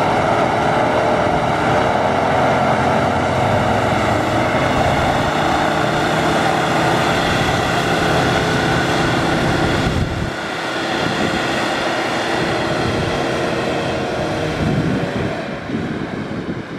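Land Rover Defender's engine revving hard and held at a steady high note as it drives off a sand recovery board and pulls out through soft sand after being stuck. The note eases briefly about ten seconds in, then carries on and fades as the truck moves away.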